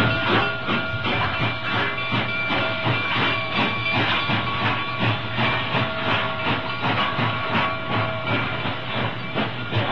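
Steam locomotive working, with a quick, even beat of exhaust chuffs over continuous hissing steam.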